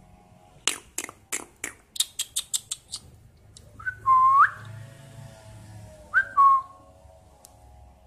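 Cockatiel calling: a quick run of about a dozen sharp clicking chirps, coming faster toward the end, then two loud whistled notes, each flicking up and sliding down to a held lower note.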